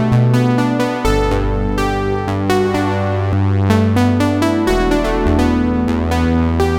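Sequential Prophet Rev2 analog polyphonic synthesizer playing a patch: quick repeated plucked notes over held chords, with the bass note changing about a second in and again near five seconds.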